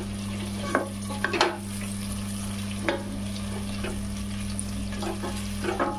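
A wooden spatula stirring and scraping onion-tomato masala frying in a stainless steel pot, with irregular sharp knocks against the pot and a steady sizzle. A steady low hum runs underneath.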